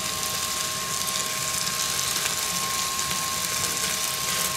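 Mushroom sauce sizzling in a pan on a gas wok burner while being stirred with a wooden spatula, over the steady hiss of the burner flame. A steady, even hum runs underneath.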